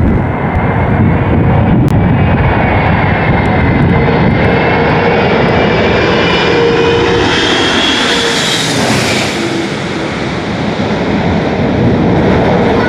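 Airliner engines passing close on landing: a rushing rumble with an engine whine that rises and swells to a peak about two-thirds of the way through, then drops and fades as the aircraft goes by.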